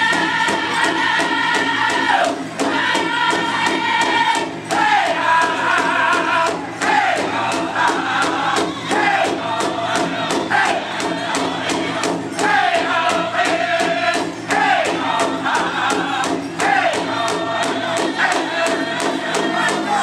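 Powwow drum group singing a Prairie Chicken dance song: a chorus of high voices over a steady, evenly struck big drum, each phrase falling in pitch at its end.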